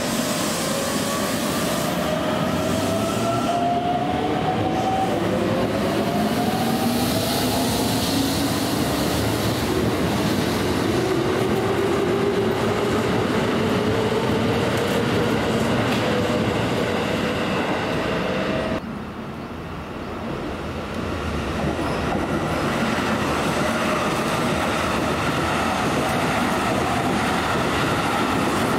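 Keikyu electric train pulling out, its traction motors whining in several tones that rise steadily in pitch as it accelerates. After a sudden break about two-thirds of the way through, another train runs through the station without stopping, with wheel and rail noise building up.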